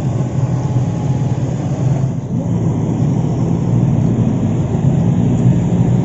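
Steady road traffic rumble from passing cars and motorbikes.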